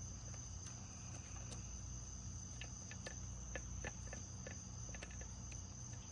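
Insects, most likely crickets, trilling in one steady high tone, over a low hum, with a scattering of faint light clicks.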